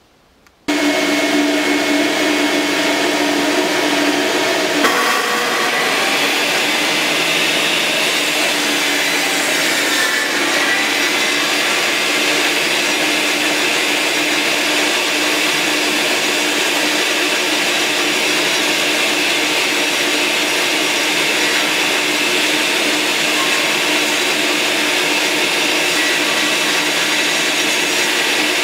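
Table saw and shop vacuum switched on together about a second in, then running steadily while a half-inch plywood panel is pushed through the blade on a sliding panel-cutting sled.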